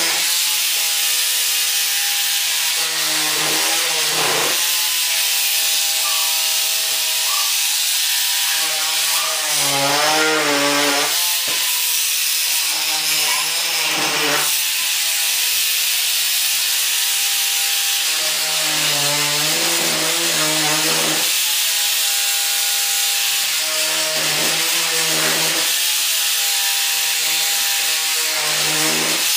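Handheld electric rotary tool grinding a wooden bulkhead: a steady motor whine with a rasping hiss, its pitch sagging and recovering several times as the bit bears on the wood.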